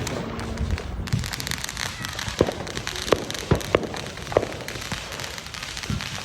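Fireworks going off: a steady crackle with a string of sharp pops in the middle, several about a second apart.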